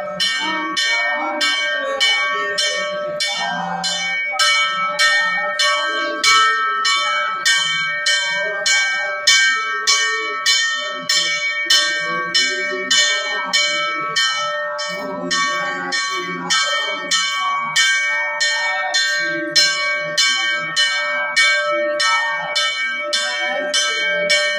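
Temple bell rung rapidly and steadily for the aarti, about two to three strikes a second, each stroke ringing on into the next.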